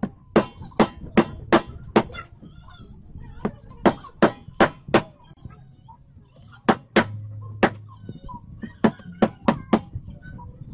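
Large knife chopping through grilled chicken and bone onto a plastic cutting board, sharp chops about two or three a second in short runs with brief pauses between.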